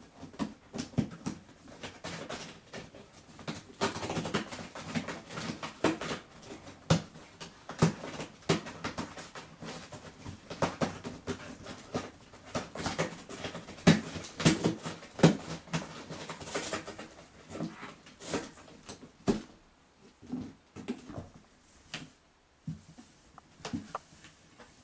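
Domestic cats scrabbling on and inside a cardboard box: irregular scratching, rustling and knocks of paws and claws on cardboard, thinning out after about twenty seconds.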